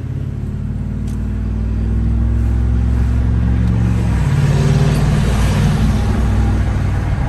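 Ford 5.4-litre Triton V8 with its muffler deleted, running under way with a deep, loud exhaust note that grows louder through the middle. The note changes about four seconds in.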